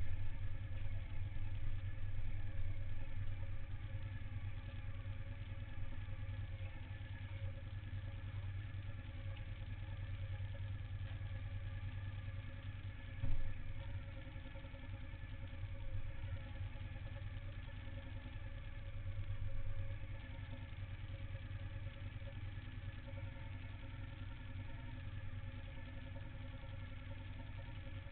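Suzuki SV1000N's 90-degree V-twin engine heard from the bike, easing off as it slows to a stop, then idling steadily. There is one short knock about halfway through and a brief swell in the engine sound about two-thirds of the way.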